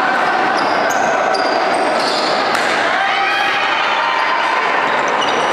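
Basketball game in a gym: a ball bouncing on the hardwood court and sneakers squeaking in brief high chirps, over a steady echoing crowd hubbub.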